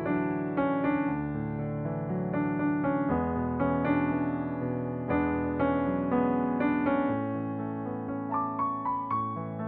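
Background music: a gentle piano or electric-piano piece with chords and a melody, its notes struck about every half second, and a run of quicker high notes near the end.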